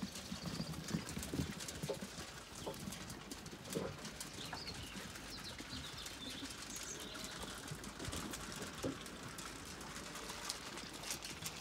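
A flock of Zwartbles ewes and lambs walking along a muddy lane: scattered hoof steps and shuffling, with birds chirping faintly.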